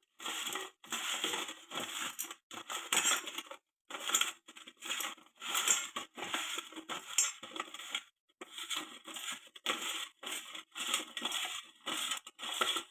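Chopped raw mango pieces being mixed and tossed with salt, chilli powder and turmeric: irregular crunching and rustling scrapes, with brief breaks.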